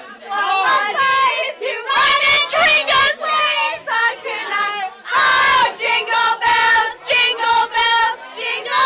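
A group of people, mostly high voices, singing and shouting loudly together in a drunken party sing-along, with a louder yell about five seconds in.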